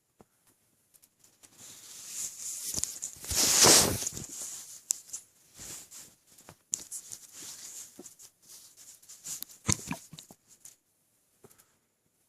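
Close-miked sounds of an overfull stomach: scattered crackling and rustling that swells for a couple of seconds near the start, then one sharp hiccup near the ten-second mark.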